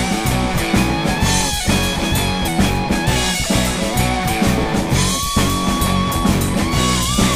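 Drum kit played in a shuffle groove along with a rock backing track, cymbals and drums over sustained guitar lines.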